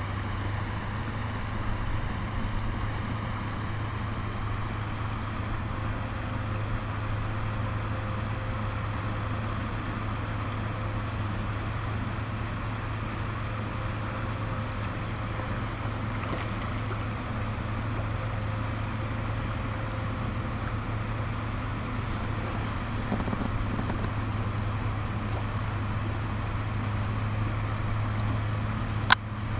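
Steady rush of a shallow stream running over gravel, with a low rumble underneath, and a single sharp click near the end.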